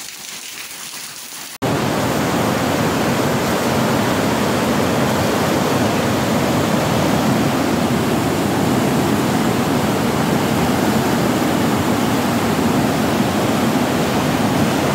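Rain falling for the first second and a half. Then it cuts abruptly to the loud, steady rushing of a muddy river in flood.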